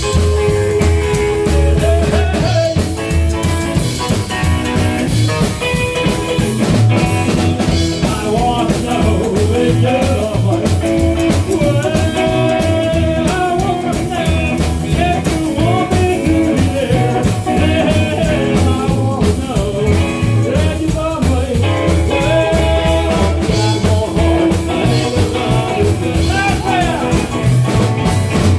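Live rockabilly band playing: hollow-body electric guitar over a steady, driving drum-kit beat.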